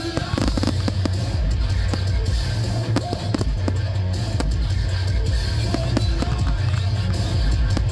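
Aerial firework shells bursting in a rapid, irregular string of sharp reports, over music with drums and a steady bass.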